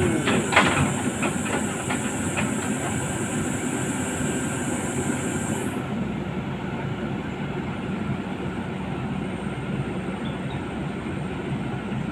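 Caterpillar 320D hydraulic excavator's diesel engine running steadily just after being started. A few metallic clanks come in the first couple of seconds, and a high hiss stops about halfway through.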